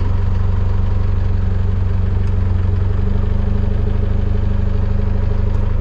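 Engine idling with a steady low hum, heard from inside a car; the hum steps up slightly in pitch about three seconds in.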